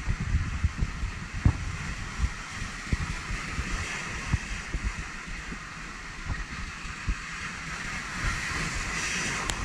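Sea surf washing along the shore, a steady hiss that swells and eases, with gusts of wind buffeting the microphone and a few small knocks.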